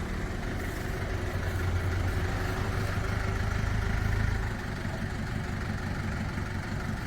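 Used woodworking machine running with a steady mechanical drone; its deep low hum weakens about four seconds in.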